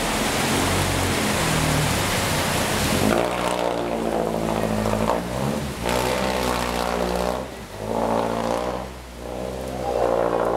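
A steady rushing hiss of water and rain for the first three seconds. Then a jeepney's diesel engine comes up, running hard under load as it pushes through deep floodwater, and it eases off briefly twice near the end.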